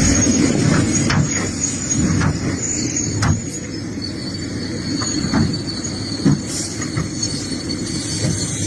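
Excavator at work in rocky ground: its diesel engine runs with a steady low rumble, with scattered knocks and scrapes of the bucket against rock and a thin, high metallic squeal.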